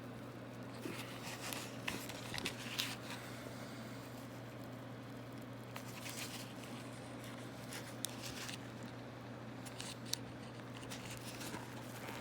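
Small, scattered scratching and creaking handling sounds as glued pins are pushed down into insulation, over a steady low hum.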